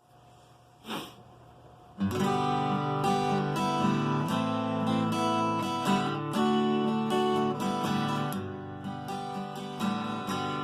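Acoustic guitar strummed in a steady rhythm, starting about two seconds in, the opening of the song before any singing. A single brief tap sounds about a second in, before the strumming starts.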